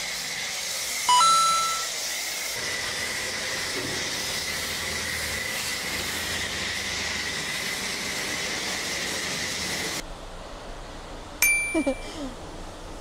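Snow foam lance spraying foam onto a car's bodywork: a steady hiss with a thin high whine, broken about a second in by a brief loud beep. Near the end, after the spray stops, comes a single sharp metallic clink.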